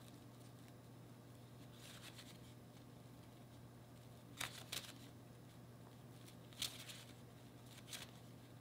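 Faint, brief rustles and flicks of a tarot deck being handled in the hands, a few scattered soft ones over near silence with a faint steady hum.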